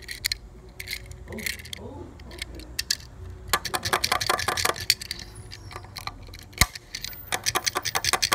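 Small metallic clicks and rattles of a 1/64 Tomica die-cast Toyota C-HR as it is handled and pressed down on its sprung suspension against a hard surface. Two runs of rapid clicks, with one sharp knock between them.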